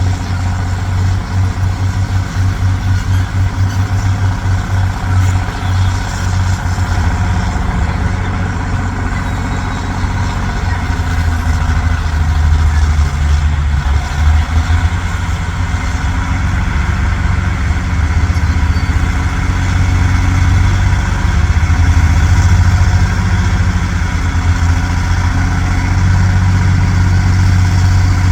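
Heavy dump truck's engine running steadily at low revs with a throbbing low note, pulsing in the first few seconds and growing a little louder about halfway through.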